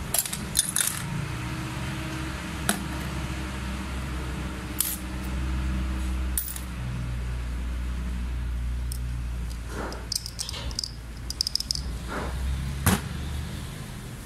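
Small metal parts of a dismantled diesel injection pump clinking as they are handled and set down on a steel workbench: scattered sharp clinks, with a quick cluster about ten to twelve seconds in, over a steady low hum.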